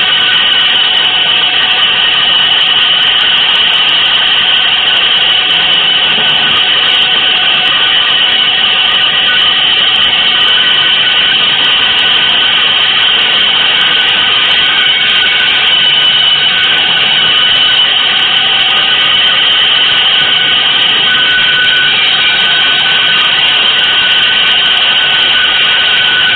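Loud, unbroken drone of dense noise with several held high tones on top, a few of which fade in and out, from an avant-garde noise composition.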